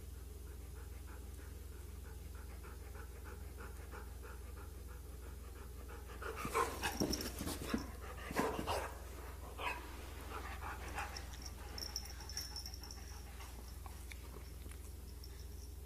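Puppy panting in soft, even breaths, then about six seconds in a short flurry of louder whining and squeaking for a few seconds before it settles again, over a steady low hum.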